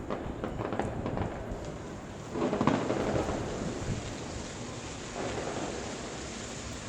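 Fireworks bursting: a run of sharp cracks in the first second and a half, then a louder boom about two and a half seconds in that rumbles away over a second or so, and a softer boom about five seconds in.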